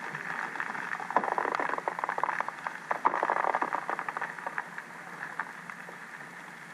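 Wind-blown snow skittering across the top of lake ice, heard underwater beneath the ice as a dense rain-like patter of fine ticks over a hiss. It is heaviest in the first few seconds and eases off in the second half.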